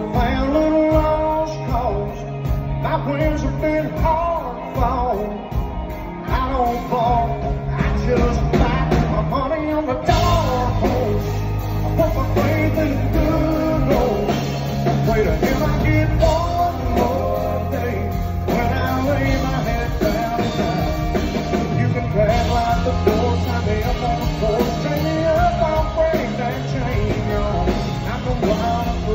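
Live country-rock band playing loud and full, with drums, bass and keyboards and a sung melody over them at times. The band fills out and gets heavier about ten seconds in.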